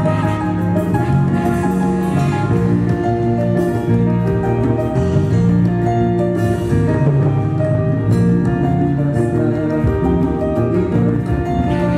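Live band playing through the PA: drum kit, electric guitar, keyboards and a horn section of saxophone, trumpet and trombone, loud and steady with no break.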